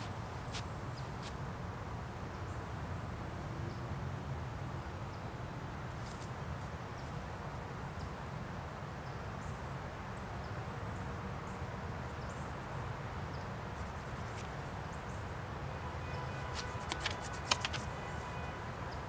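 Steady low outdoor background rumble with scattered faint clicks and taps, and a quick cluster of sharper clicks near the end.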